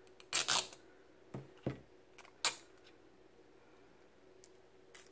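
Seal on a small cosmetic pot being pulled off by its tab: a short scratchy rip about half a second in, then three light clicks and taps over the next two seconds.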